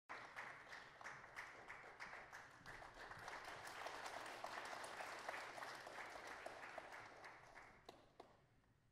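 Audience applauding, the clapping fading away about eight seconds in, with a few last claps.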